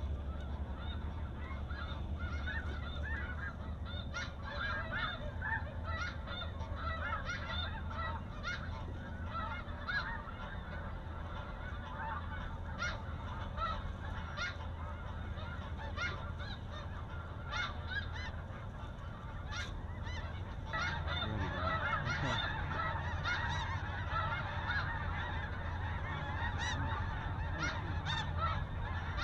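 A large flock of snow geese calling, many overlapping honks at once, growing louder and denser about two-thirds of the way through as the flock comes in. A steady low rumble runs underneath.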